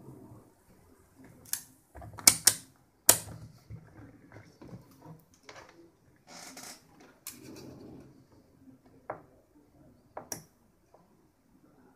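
Handling noise from a resistor set's packaging: irregular sharp clicks and taps, a loud cluster about two to three seconds in and another near the end, with a brief rustle in between.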